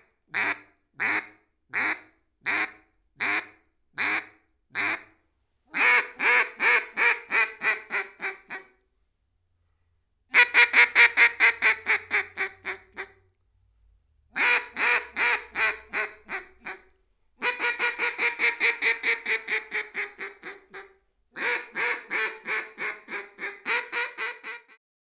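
Siren Mythology duck call blown into a studio microphone. It starts with eight single quacks about 0.7 s apart, then gives five fast runs of quacks separated by short pauses.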